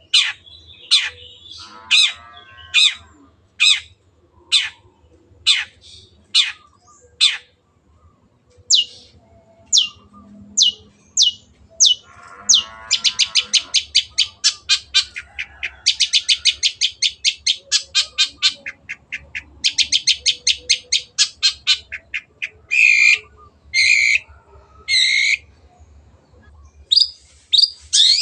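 Long-tailed shrike singing: sharp high calls repeated about once or twice a second, then a long fast rattling trill through the middle, broken by short pauses. A few fuller, harsher calls and quicker notes follow near the end.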